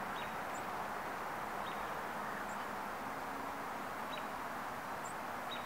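Outdoor ambience: a steady rushing hiss, with a few short, high bird chirps spaced through it.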